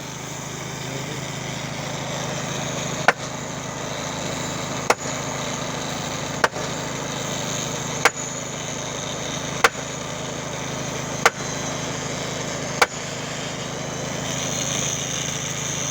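An engine running steadily, with a sharp click repeating about every second and a half, seven times in all.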